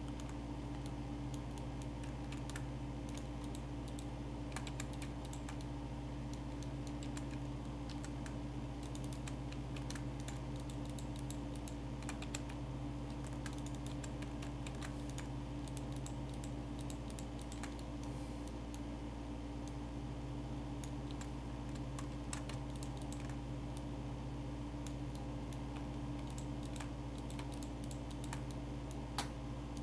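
Computer keyboard keys and mouse buttons clicking now and then as keyboard shortcuts are tapped, scattered single clicks over a steady low hum.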